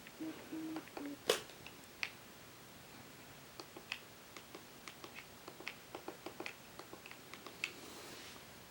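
A scattered series of light clicks and taps from objects being handled, with one sharper click about a second in.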